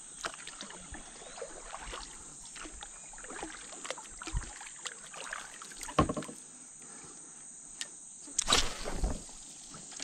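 Kayak paddling: the paddle dipping and splashing in the water with light knocks on the hull, the loudest strokes near the end, over a steady high drone of insects.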